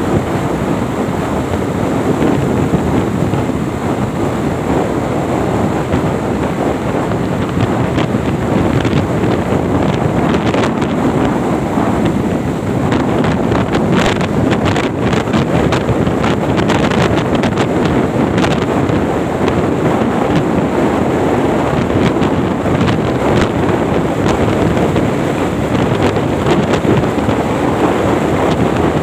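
Wind rushing over the microphone of a motorcycle ridden at about 100 km/h, a loud steady rush with no clear engine note above it.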